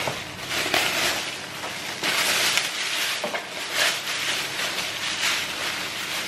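Clear plastic packaging crinkling and rustling as it is cut open and pulled apart by hand: a continuous crackle with many sharper crinkles.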